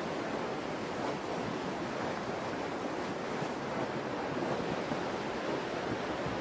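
Muddy floodwater rushing steadily across a road, a continuous noise of fast-moving water.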